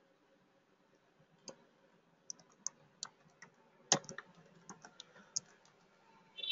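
Computer keyboard keystrokes: a scattered handful of short, faint key clicks, starting about a second and a half in, with the loudest about four seconds in.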